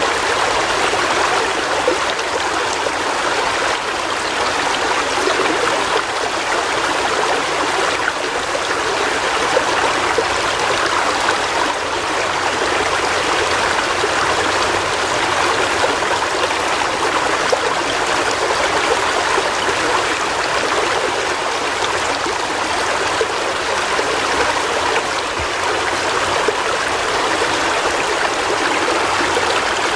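River water flowing over stones in a steady, even rush, with trickling and gurgling.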